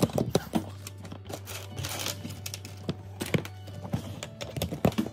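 Plastic Lego bricks clicking and knocking as they are pressed onto a baseplate, a run of short sharp clicks, over background music.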